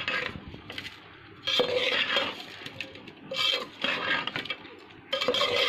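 Metal spoon scraping and clinking against a steel pot while raw chicken, onion and ginger-garlic paste are stirred together, in repeated strokes with short pauses between.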